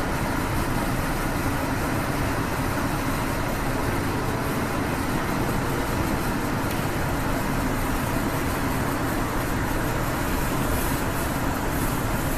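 Steady rumble of an Amtrak passenger car rolling along the rails, heard from inside the rear car.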